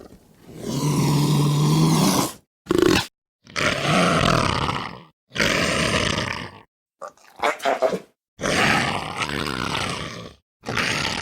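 A series of separate lion roars and growls, one clip after another with brief dead-silent gaps between them. Most run a second or two; two are short snarls, one near the middle and one about three seconds in.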